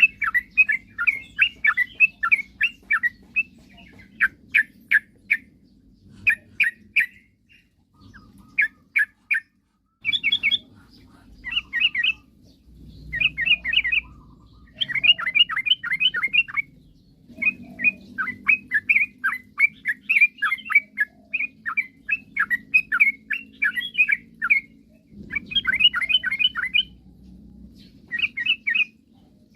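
Yellow-vented bulbul (trucukan) singing in full voice: quick runs of short bubbly chirps, phrase after phrase, with brief pauses between.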